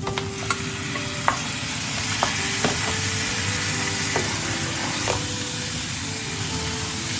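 Marinated chicken pieces sizzling and frying in a hot pan of coconut oil and spice paste, while a spoon stirs them, knocking against the pan now and then.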